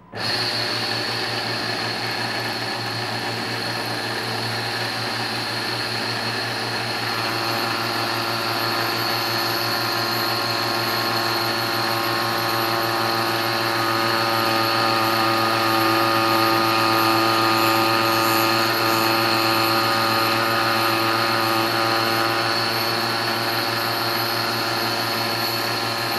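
Stepper-motor-driven rose engine lathe starting abruptly and running steadily, its belt-driven rotary cutter cutting the end of the workpiece. The sound is a steady mechanical hum with several held tones, and more tones join about seven seconds in.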